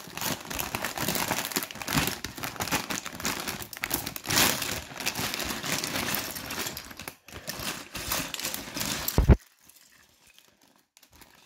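Plastic LEGO parts bag crinkling as it is opened and handled, then a sharp knock and a sudden cut to near silence about nine seconds in.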